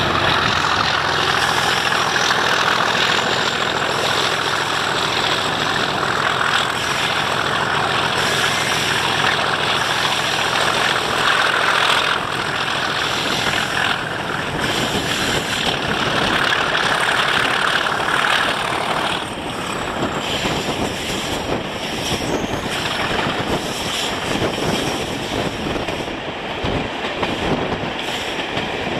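British Rail Class 33 diesel locomotive's Sulzer eight-cylinder engine running under power, heard from a carriage window over the continuous rush of the train's wheels on the rails.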